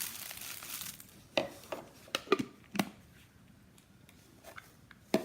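Plastic blender cups and lids being handled: a short rustle of packaging, then several sharp plastic knocks and clacks in quick succession, with a couple of lighter clicks near the end.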